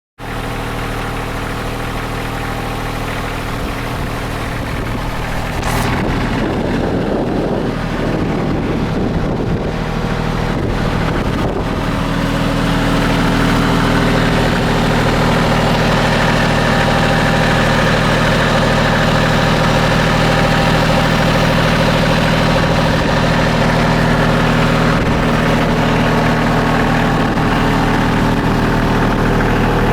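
A 19 hp Bobcat CT225 compact tractor engine running steadily, driving a PTO backhoe. It gets louder about six seconds in, with a brief click, and again about twelve seconds in.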